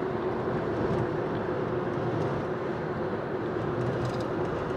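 Road noise and wind rushing through the open windows of a moving car, with a steady low drone underneath.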